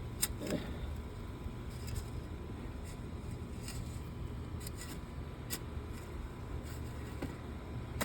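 Shovel and hands working through loose garden soil: scattered light scrapes and ticks of dirt over a steady low rumble.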